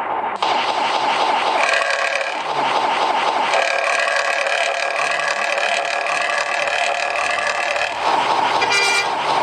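Economy bus engine running while the bus is under way, a rough, rattly sound that has been likened to a phlegmy cough. Its steady tones shift pitch a few times, and a short shrill sound cuts in near the end.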